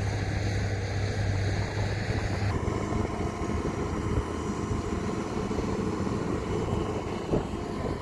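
Scania 114L 380 dump truck's diesel engine running steadily with a low drone; about two and a half seconds in the sound changes abruptly, and the engine runs on as the tipper body begins to rise to dump its soil.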